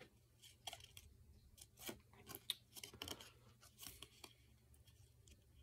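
Faint crisp rustles and small snaps of a folded cardstock game card being handled and flipped open, scattered irregularly, with a few slightly louder crackles around the middle.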